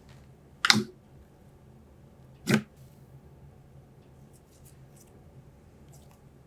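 Slime being squished and played with by hand: two loud, short pops about two seconds apart, then faint small crackles.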